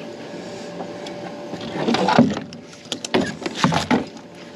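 Irregular clunks, knocks and scraping as a fishing magnet and its metal finds are handled, louder about two seconds in and with several sharp knocks between three and four seconds.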